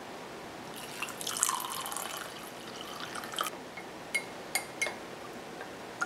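Warm water poured into a glass mug over spoonfuls of ginger honey, then a metal spoon stirring and clinking sharply against the glass three times.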